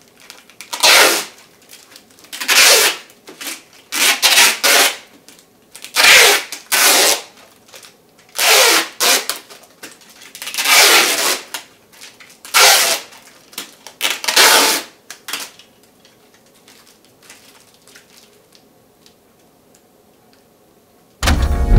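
Adhesive tape ripped off its roll in about a dozen short, loud rasps, one every one to two seconds, as it is wound around a DVD burner. The rasping stops about three-quarters of the way through, and organ music starts near the end.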